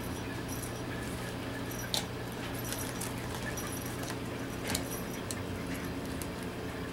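Puppy playing with a gift bag and rope toy: small handling noises and faint jingling, with two sharp clicks about two seconds and four and a half seconds in, over a steady low hum.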